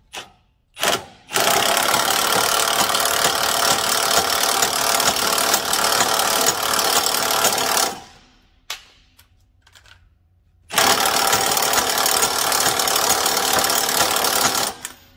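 Cordless impact wrench hammering the pitman arm nut tight in two long runs, about six seconds and then four seconds, with a couple of short knocks just before the first run.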